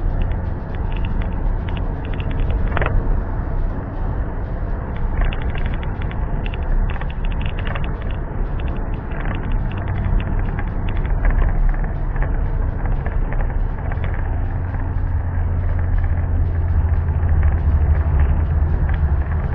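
Steady low rumble of a motor vehicle on the move, with frequent light rattling clicks over it.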